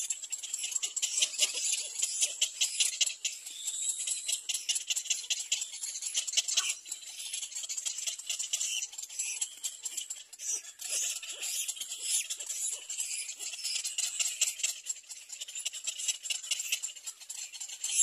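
Many birds chattering and squeaking in a nesting colony: a dense, high-pitched din of rapid clicks that swells and fades.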